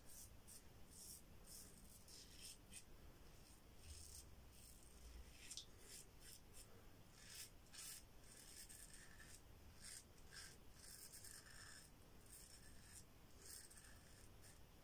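Yaqi Final Cut adjustable safety razor with a Treet Platinum blade scraping through a week's lathered stubble: a long run of faint, short raspy strokes.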